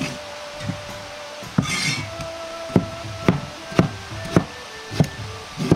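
Cleaver chopping boiled bamboo shoot into chunks on a cutting board: a sharp knock of the blade on the board about every half second, with a short scrape about one and a half seconds in.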